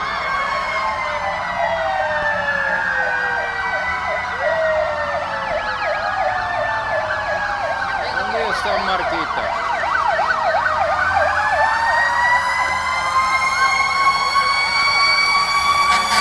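Several fire engine sirens sounding at once, their wails sliding up and down over each other, with rapid yelping pulses in the middle. Near the end one siren rises and holds a steady high note.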